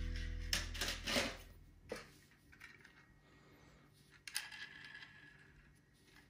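Background music fading out, with a few light clicks and knocks in the first two seconds. After that it is near quiet, apart from faint handling noise of a die-cast toy car turned in the hands about four seconds in.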